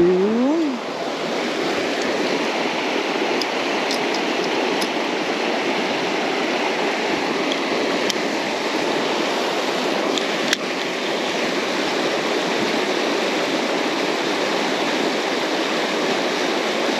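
Creek water rushing steadily, with a single sharp click about ten and a half seconds in.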